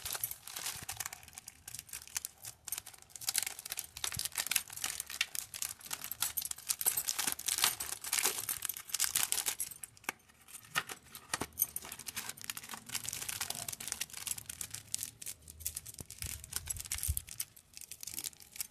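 Crinkling and tearing of a cream-wafer packet's plastic and foil wrapper as it is torn open and peeled by hand. The crackling is dense through the first half and sparser later.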